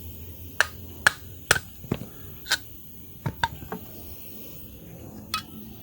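Metal strut parts and hand tools being handled during strut assembly: about nine sharp, irregular clinks and knocks, several ringing briefly.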